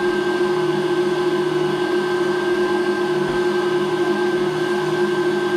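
Electric stand mixer running steadily, whipping marshmallow filling in its bowl: a constant motor whine that holds one pitch throughout.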